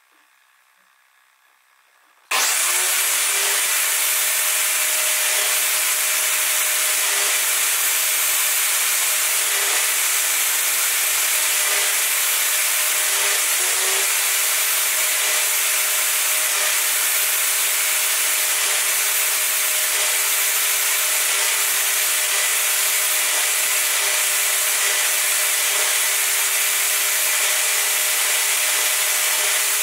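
Table saw switches on about two seconds in and runs steadily while a wooden block on a crosscut sled is pushed through the blade in repeated passes to cut out a notch.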